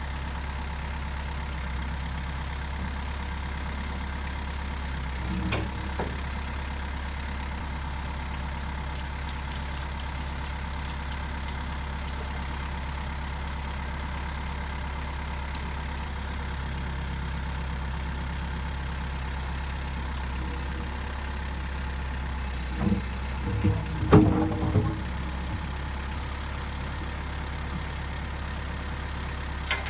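A heavy machine's engine idling steadily while a new excavator swing bearing is guided into place. A few quick light ticks come about nine to eleven seconds in, and a cluster of heavier metal knocks and clanks comes about 23 to 25 seconds in.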